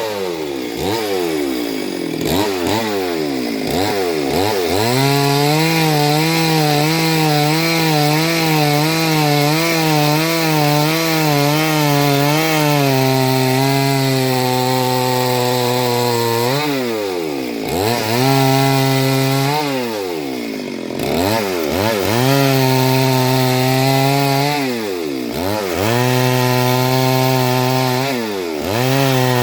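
Chainsaw engine running at high revs while cutting wood, its pitch wavering under load. Several times it drops off the throttle and revs back up.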